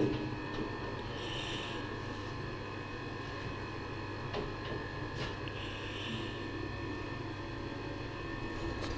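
Steady electric hum of workshop machinery, several constant tones over a low drone, with a few faint light knocks.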